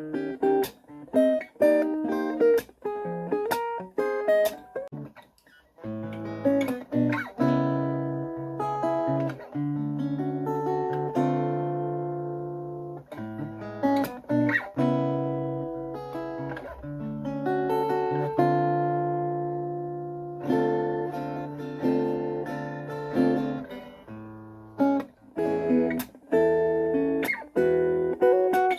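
Cort SFX acoustic-electric guitar played through a small Marshall amp: single picked notes at first, then, after a short pause about six seconds in, strummed chords left to ring for several seconds each, with quicker picked notes again near the end.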